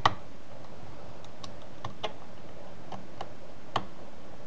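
Small, sharp clicks of a precision screwdriver turning a screw in a laptop's plastic screen bezel. One louder click comes at the start, then scattered faint ticks at uneven intervals.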